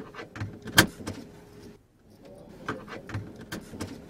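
A series of clicks and knocks from handling things inside a car, with a faint steady tone underneath. The loudest is a sharp click about a second in.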